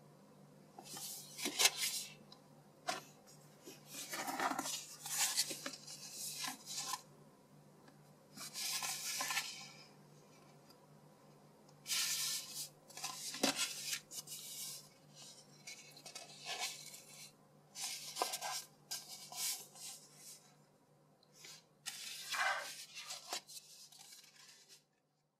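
Glossy paper pages and a sticker sheet of a children's sticker book being handled and turned, in a series of irregular rustling bursts over a low steady hum. The sound stops abruptly near the end.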